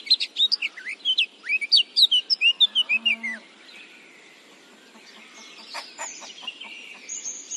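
Small songbirds chirping, a rapid run of quick high chirps for the first three seconds or so, then fainter scattered calls over a soft steady background.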